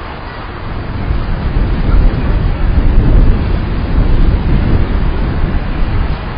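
Wind buffeting the microphone outdoors: a loud, gusting low rumble that swells about a second in and eases slightly near the end.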